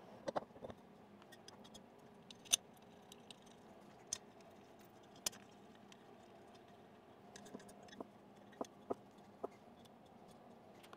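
Scattered light metal clicks and taps, about a dozen spread unevenly with quiet between them, as a metal spacer block is handled and fitted against a CNC router's spindle carriage, its alignment pins and bolts being set in place.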